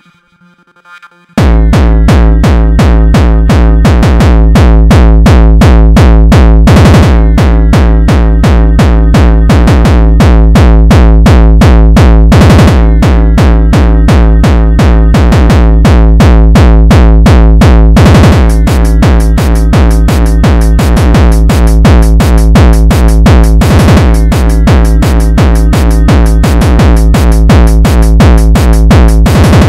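Electronic acid music. A faint synth passage breaks about a second and a half in into a loud, fast drum-machine beat with a heavy synthesizer acid bass line.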